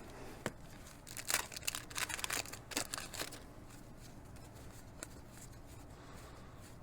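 1987 Donruss baseball cards being flipped through by hand: a click, then a two-second run of short papery swishes and snaps as the cards slide against each other, and another single click near the end.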